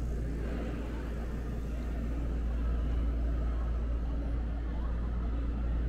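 Steady low rumble of ambient background noise, with no sudden sounds.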